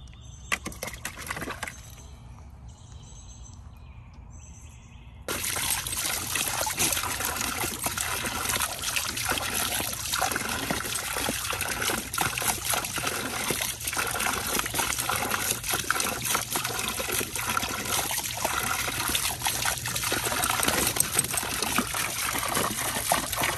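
Water trickling quietly from a garden hose into a plastic kiddie pool with some splashing; about five seconds in it switches abruptly to a loud, steady spray of a hose jet splashing on dogs' mouths as they bite at the stream.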